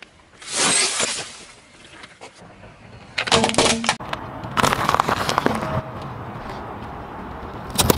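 A car tyre crushing objects on asphalt: two loud crunches as a plastic-bagged object gives way, the first about half a second in and the second near three seconds. After a cut, a pile of small hard-shelled coloured balls crackles and pops rapidly for about a second as the tyre flattens them, followed by steadier low noise.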